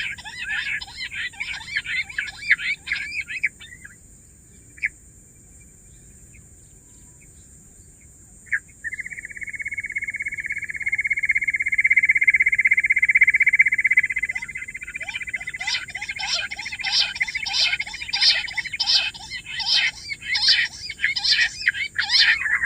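Bush quail calling. A fast chattering chorus stops after a few seconds, then comes a quiet gap and a long even trill that grows louder. A run of repeated calls at about two a second follows near the end.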